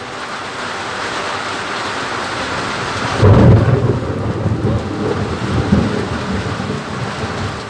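Thunderstorm: steady rain falling, with a loud clap of thunder about three seconds in that rumbles on for several seconds and slowly fades.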